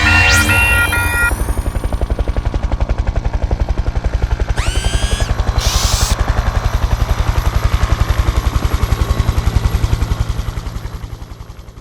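Cartoon sound effects: a level-crossing warning bell clanging stops about a second in, giving way to a rapid, even helicopter-rotor chop that fades away near the end. Two short rising electronic whoops sound near the middle.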